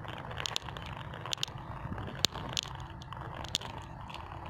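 Glass marbles clicking against one another at irregular intervals, one or two sharp clicks a second with the loudest a little over two seconds in, as they roll down a sand track and knock into the line of stopped marbles. A steady low rumble runs underneath.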